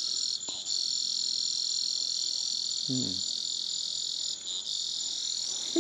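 Steady, high-pitched night chorus of insects and frogs, with a brief murmur of a man's voice about three seconds in.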